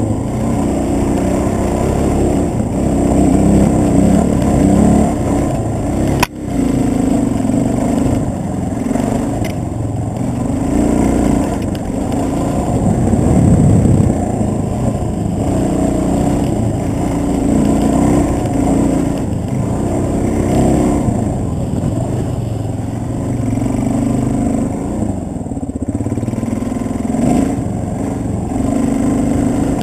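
Dirt bike engine revving up and down in repeated surges as the throttle is rolled on and off along the trail. A sharp click with a brief dip in the sound about six seconds in.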